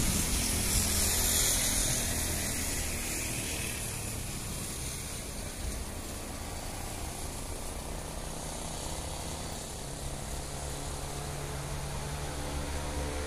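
Train moving away along the track, the rumble of its wheels on the rails fading, with a low steady engine drone underneath; the drone grows stronger from about two-thirds of the way in.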